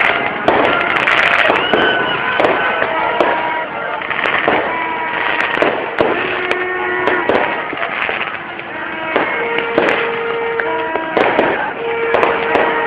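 New Year's fireworks going off in quick succession, with sharp bangs throughout, over a constant din of crowd voices and steady held tones.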